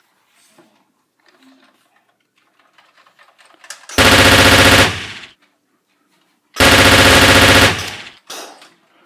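Two loud bursts of a machine-gun sound effect, each about a second long and about two and a half seconds apart, with a short fading tail after each.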